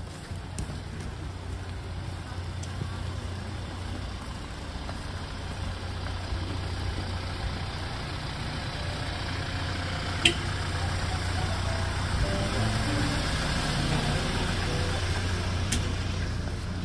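Small refrigerated delivery truck's engine running as it creeps along the snowy street, a steady low hum that grows louder as it draws close and eases off near the end. A single sharp click about ten seconds in.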